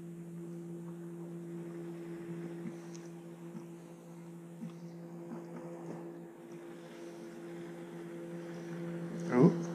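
Electric trolling motor running with a steady hum. A short burst of a person's voice comes near the end.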